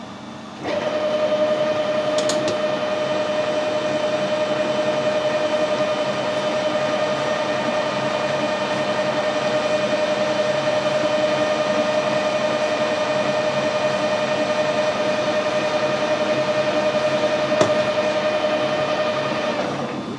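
Metal lathe starting under a second in and running steadily with a constant whine from its headstock drive, while taking a very light finishing cut on a shaft held in a collet chuck; it shuts off just before the end.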